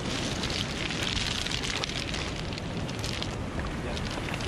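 Surf washing over a pebble beach: a steady hiss with fine crackling through it.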